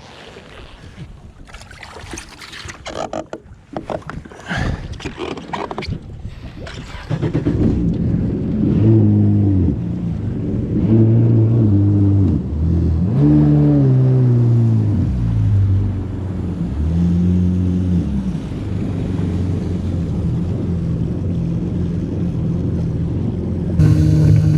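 Jet ski engine running: after several seconds of scattered knocks and rustling, it revs up and down several times and then settles into a steady run as the ski pulls away.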